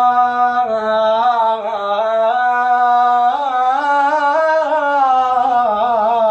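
A man singing unaccompanied in Iraqi style: one long held note with wavering turns and ornaments, drawn out over several seconds on the same line of the song.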